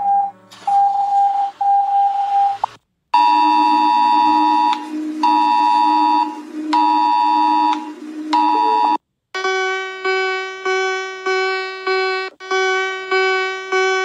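A run of three different electronic emergency alert tones. First a steady tone broken by short gaps; after a brief silence a chord over a constant low drone, sounding in long pulses of about a second and a half; after another short gap a higher many-toned chord pulsing about twice a second until near the end.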